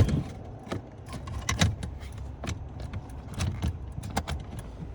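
Scattered, irregular light clicks and clinks of tools and plastic interior trim being handled during reassembly of a car's dashboard area.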